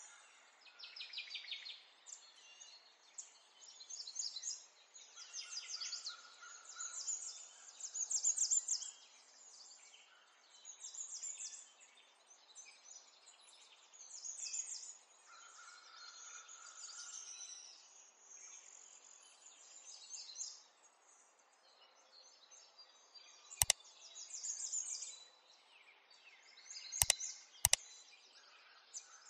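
Birds chirping and trilling in rapid high phrases, with three sharp clicks near the end.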